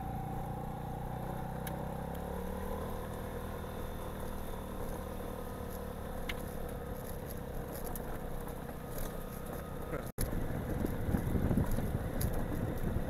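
Vespa Primavera scooter engine running at low speed on a forest dirt track, its pitch rising a little about two seconds in. About ten seconds in there is a brief break, after which a louder, rougher rumble takes over.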